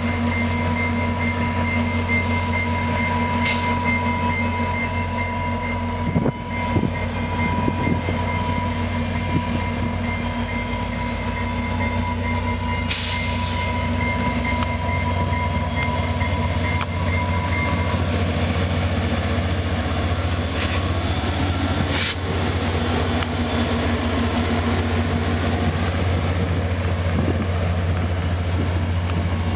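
EMD F40PH diesel locomotive with its two-stroke V16 engine working hard as it pulls a passenger train away: a steady low throb under a turbocharger whine that climbs slowly in pitch. Three short bursts of noise break in, about 3 s, 13 s and 22 s in.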